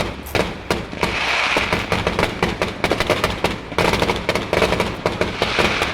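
Fireworks going off: a rapid string of bangs and pops, with stretches of dense crackling.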